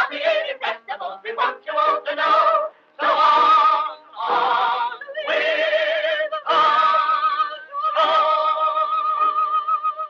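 A pierrot troupe of men and women singing a stage song with a wavering vibrato in short phrases. They end on one long held note of about two seconds, which stops at the close of the number.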